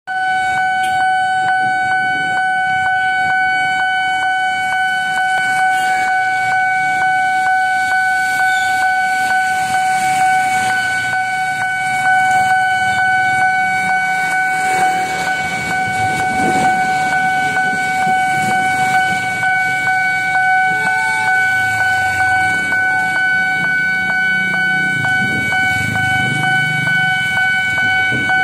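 Railway level-crossing warning alarm sounding one continuous steady tone, over the noise of motorcycles and cars passing across the crossing on a wet road.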